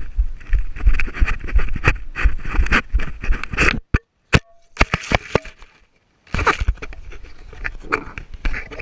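Head-mounted GoPro jolted by running footsteps on grass: rapid thumps and rustling at the camera housing, then a few sharp knocks as the camera spins and is handled, with the sound cutting out briefly twice.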